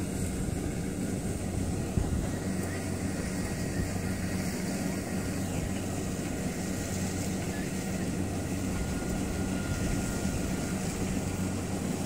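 Kubota DC-70 rice combine harvester's diesel engine running steadily while the machine cuts rice, a continuous low hum under a dense mechanical noise.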